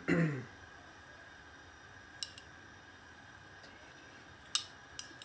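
A metal tablespoon clinking lightly against a glass bowl as oil is spooned out into a frying pan: a few sharp clicks, a pair about two seconds in and two more near the end. A brief low voice-like sound comes right at the start.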